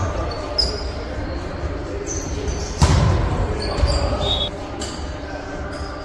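A volleyball smacks sharply once, about three seconds in, in an echoing gym. Players' voices and short high sneaker squeaks on the wooden floor run around it.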